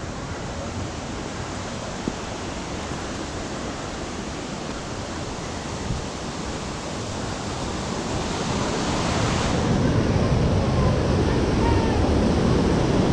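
Steady outdoor rushing noise with a low rumble, swelling louder about eight seconds in.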